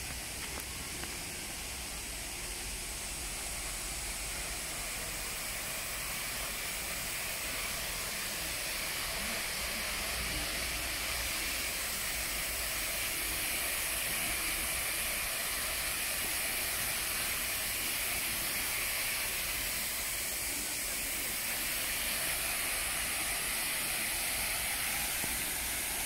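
A steady, even hiss with no separate events, strongest in the high range.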